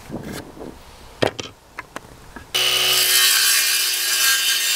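A few knocks of wood being handled, then about two and a half seconds in a cordless circular saw starts up and runs steadily, cutting through a wooden board.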